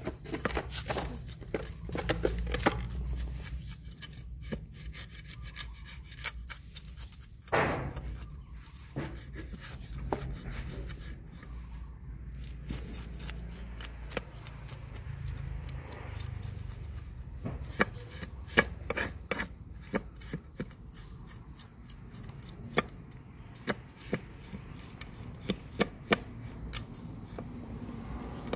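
A steel kitchen knife scraping the scales off a whole fish on a wooden chopping block: repeated rasping strokes with sharp clicks as the scales come away.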